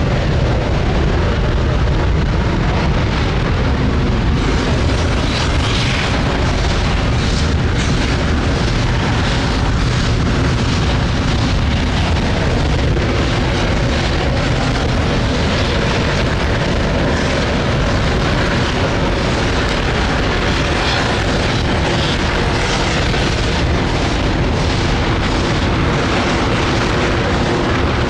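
Space Shuttle Main Engine (RS-25, liquid hydrogen and oxygen) firing at full run on a ground test stand: a steady, loud rocket roar with a dense crackle running through it.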